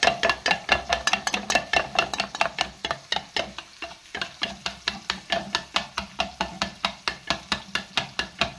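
Metal spoon beating yogurt in a metal pot, clinking against the pot's sides in a steady rhythm of about four strokes a second.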